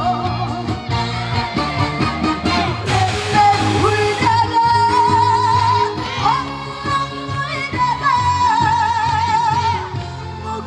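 A woman singing live through a stage sound system over band accompaniment, holding long notes with a wide vibrato.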